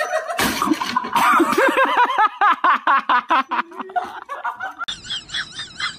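A wooden reclining rocking chair goes over with a clatter about half a second in. Loud laughter follows, in rapid choppy bursts.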